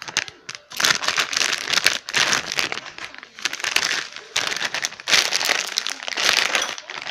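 Squishy toy packaging crinkling and crackling as it is handled, in repeated bursts with short pauses, starting about a second in.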